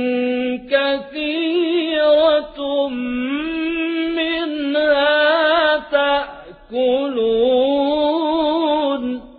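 A man reciting the Quran in a melodic, chanted style: several long, wavering, ornamented phrases with short breaks between them, ending just before the end.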